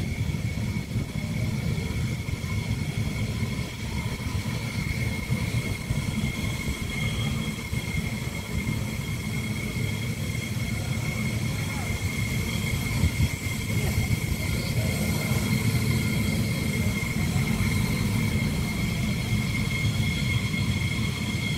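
F-16 Block 50 fighter jet's General Electric F110 turbofan running as the jet rolls along the runway: a steady high whine over a low rumble.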